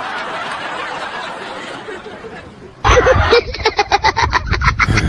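A soft steady hiss, then about three seconds in a sudden loud burst of rapid, choppy laughter.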